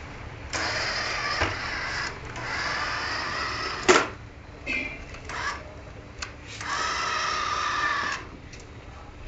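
Small electric motor of a toy car whirring in repeated runs of about a second, with sharp clicks in between.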